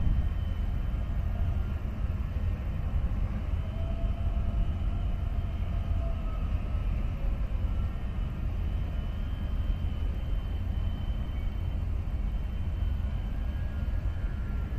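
Harbour ambience: a steady low rumble with faint thin whining tones that drift slowly in pitch.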